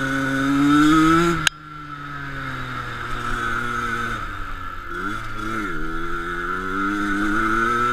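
Enduro motorcycle engine under way: the revs climb, then drop sharply with a click about a second and a half in. Near the five-second mark they dip and rise again briefly, then build steadily, with a steady high whine alongside.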